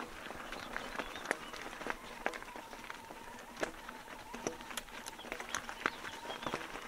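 Raindrops ticking irregularly on a bike-mounted 360° camera, over a steady hiss.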